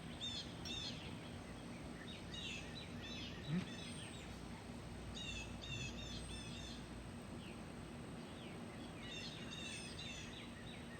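Small songbirds chirping in short groups of quick, sweeping notes every couple of seconds, over a faint, steady background rumble.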